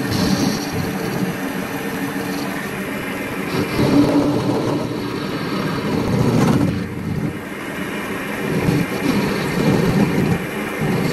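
Chinese WM210V-type benchtop metal lathe running at about 520 rpm, with a carbide-insert turning tool cutting the end of a bolt held in the chuck: a steady machine hum with the scraping of the cut.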